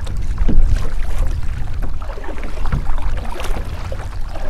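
Kayak paddle strokes dipping and dripping in very shallow water, as short scattered splashes, over a steady low rumble of wind on the microphone.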